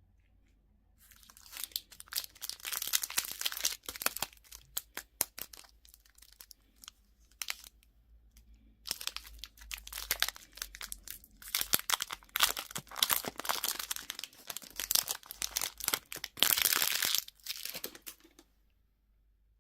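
Crinkly candy wrapper being torn open and crumpled by hand, in long runs of crackling with a pause near the middle.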